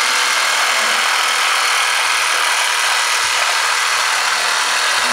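A small toy steam engine with a steady hiss, as it builds steam or runs.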